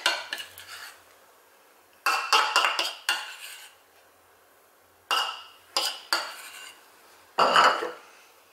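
Metal spoon scraping thick red pepper paste out of a small cup, in short bursts of scrapes and clinks with quiet gaps between, the loudest near the end.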